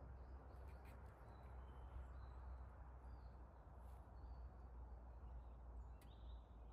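Near silence: quiet outdoor ambience with a steady low rumble, a few faint distant bird chirps and a few faint clicks.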